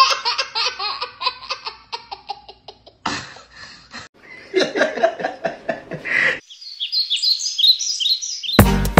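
A little girl laughing hard in long runs of rapid ha-ha-ha, broken by short pauses. About six and a half seconds in the laughter stops and high bird chirps follow, and music starts near the end.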